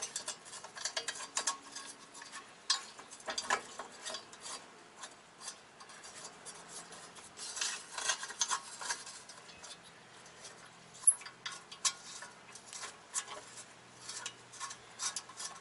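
Light metallic clinks, taps and scraping as steel rear disc-brake parts of a VW Mk2 GTI (spindle, dust shield, caliper mounting bracket) are handled and fitted by hand, with one sharper click about eleven seconds in.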